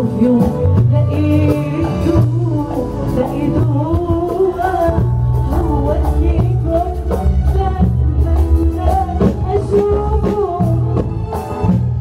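A woman singing a Moroccan pop song live into a microphone, backed by a band with a steady bass line and light percussion.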